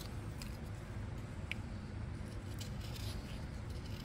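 Carving knife paring thin shavings off the corners of a small wooden stick, a few short, faint scraping cuts, over a steady low hum. The cuts are taking the corners of a square taper down to an octagon.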